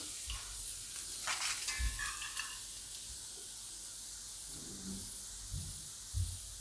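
Hot oil sizzling faintly in an iron kadai as a wire-mesh strainer of freshly fried peanuts is held and shaken above it to drain, with a few soft bumps. The sizzle eases a little about halfway through.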